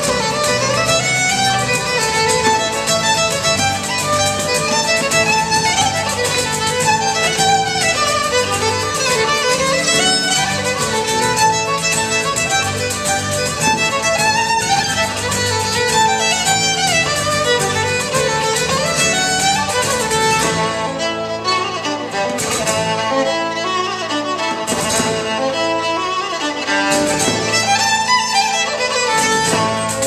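Fiddle playing a Celtic tune with bass and percussion accompaniment. About 20 seconds in, the backing thins and the brightest highs drop away.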